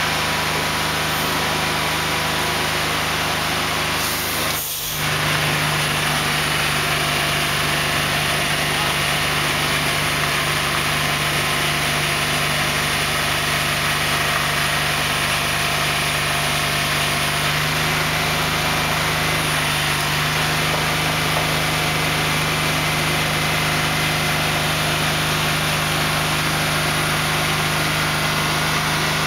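Engine of a multi-axle heavy-haul transporter running steadily at slow speed, a constant low drone. The sound briefly dips about five seconds in.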